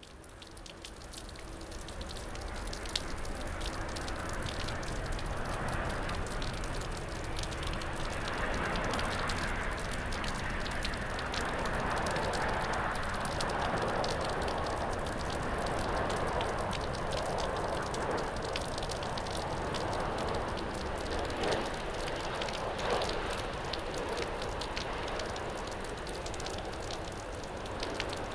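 Heavy rain falling steadily, fading in at the start, with the rushing jet noise of an Airbus A350-941 on final approach swelling through the middle and easing off near the end.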